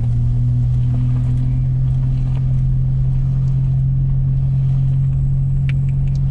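Pickup truck driving in four-wheel drive, its engine and drivetrain giving a steady low drone.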